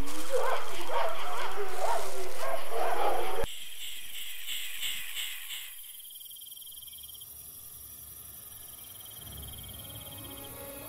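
Crickets chirping in a night-time ambience, at first under a loud, wavering pitched cry that cuts off suddenly about three and a half seconds in. The chirping then fades to a faint steady night background.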